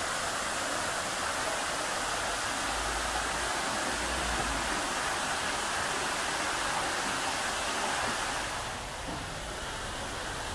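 Artificial rock waterfall pouring into a swimming pool: a steady rush of falling, splashing water, a little quieter near the end.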